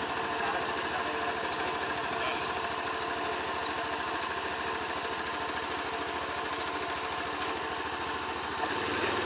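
UTV engine idling with a fast, even chugging, ready to be driven down the ramps off the pickup bed. A deeper engine note joins near the end.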